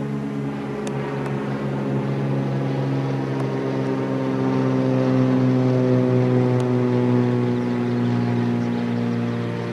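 Cessna 206 single-engine propeller plane flying overhead with a steady engine-and-propeller drone. It grows louder toward the middle as the plane comes closest, then eases slightly, its pitch sinking a little as it passes.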